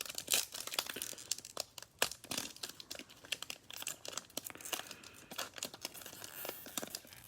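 A Mosaic basketball card pack's wrapper crinkling and tearing as it is opened by hand, a fumbled, drawn-out opening full of small crackles.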